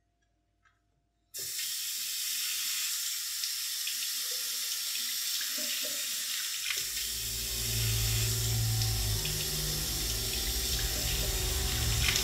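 Kitchen tap turned on about a second in, water running steadily into the sink; a deeper sound joins the flow about halfway through.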